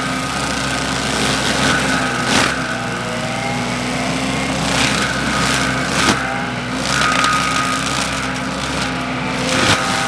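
Wacker Neuson SM120 mini skid steer running a Baumalight MS530M forestry mulcher head, the engine running steadily under a high steady whine. Several sharp knocks, a few seconds apart, break through.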